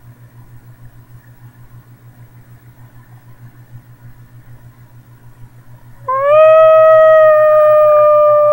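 A man's voice howling like a wolf, high in falsetto. After a faint steady hum, a loud long howl starts about six seconds in, slides up in pitch and is then held.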